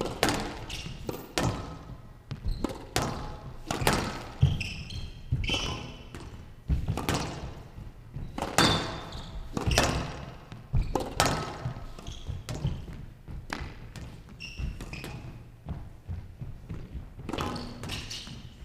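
A squash rally on a glass court: irregular sharp knocks of the ball off rackets and walls, with short high squeaks of shoes on the court floor.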